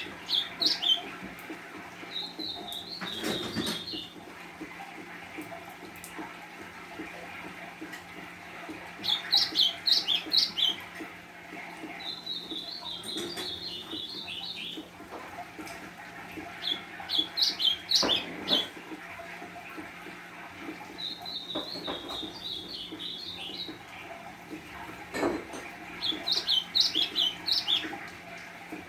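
A golinha (white-throated seedeater) singing its song over and over, about every eight seconds: a quick burst of high notes, then a longer warbled twitter.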